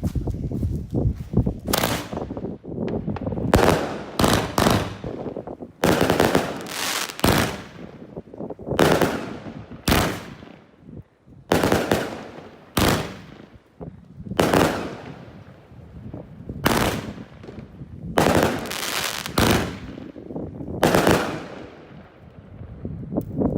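Consumer fireworks bursting overhead in a loud, irregular series of bangs, about one a second, each trailing off in a fading crackle.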